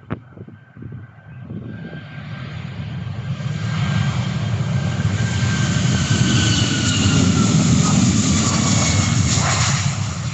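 An airliner passing close by: its engine noise swells over several seconds to a loud peak, with a thin whine that falls slowly in pitch as it goes past.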